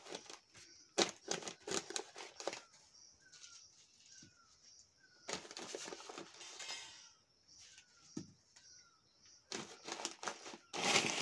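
Newspaper lining of a cardboard box crinkling and rustling as peaches are pushed into rows by hand, with soft knocks of fruit against fruit and the box, and a longer stretch of rustling about halfway through.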